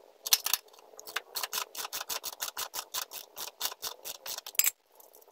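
Ratchet wrench clicking quickly and evenly, about seven clicks a second, while a 22 mm socket works the motorcycle's rear axle nut loose; the clicking stops shortly before the end.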